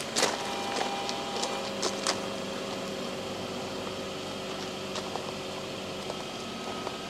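Steady outdoor background hum with a few faint steady tones, and a few light clicks in the first two seconds.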